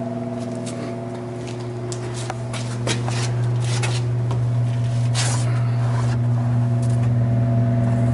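Inline exhaust fan on 12-inch flexible ducting running with a steady electric hum, a little louder from about three seconds in. Scattered light scrapes and clicks over it.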